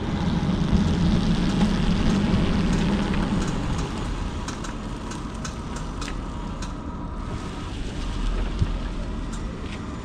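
A car moving along, with steady road and tyre noise and a few scattered light ticks.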